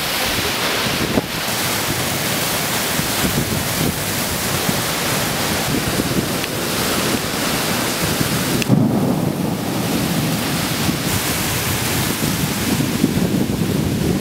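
Heavy thunderstorm downpour: a dense, steady rush of rain, with wind buffeting the microphone. About nine seconds in, the high hiss falls away and a lower, rougher rush of wind and water takes over, with gusts growing toward the end.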